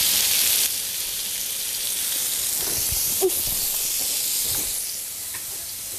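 Meat sizzling on a tabletop grill plate: a steady hiss that drops in level after the first second and dips a little more near the end.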